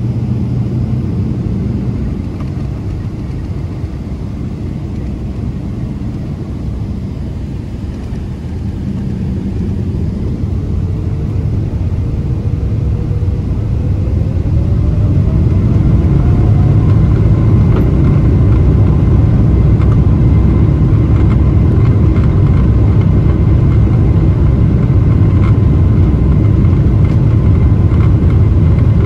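Boeing 777-300ER's GE90 engines heard from inside the cabin, spooling up with a rising whine about a third of the way in, then a loud steady rumble as takeoff thrust is set and the aircraft rolls. A few light knocks near the end.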